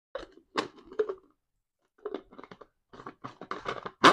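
Plastic clicks and scraping as the blade unit of a Prestige Express mixer grinder is screwed onto its clear plastic jar, the threads ticking in a quick run near the end.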